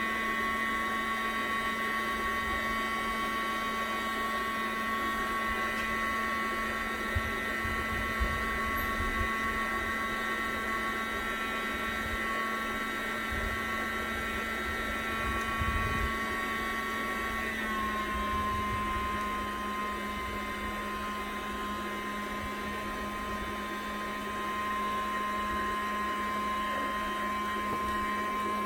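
Small electric motor of a prototype liquid-cooling air conditioner running with a steady whine over a low hum. The pitch drops slightly about eighteen seconds in, then holds steady.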